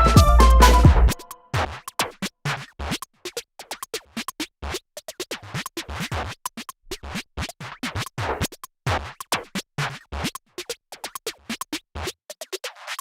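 Background music: a full, bass-heavy mix cuts out about a second in, leaving sparse, irregular short percussive clicks and hits.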